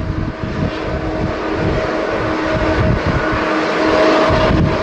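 Boeing 747-8's four GEnx-2B turbofan engines running with a steady whine, growing gradually louder, with wind buffeting the microphone.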